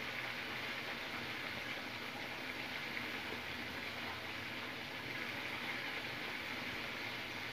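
Chicken livers frying in hot oil in a pot: a steady sizzle.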